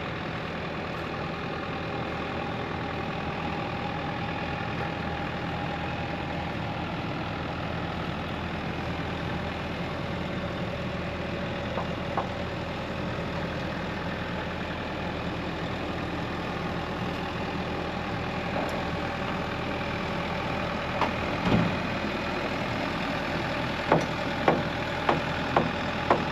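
Bobcat E55 compact excavator's diesel engine running steadily at idle, with a handful of sharp knocks in the last few seconds.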